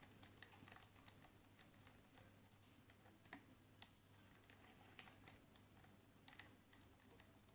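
Faint, irregular small metallic clicks of a lock pick and tension wrench working the pins inside a Keso 2000 high-security lock, a click every half second or so.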